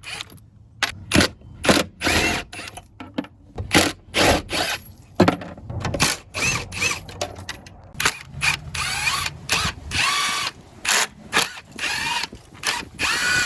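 Power drill with a socket running in many short bursts, its whine rising and falling as it spins up and down, backing out 12 mm bolts.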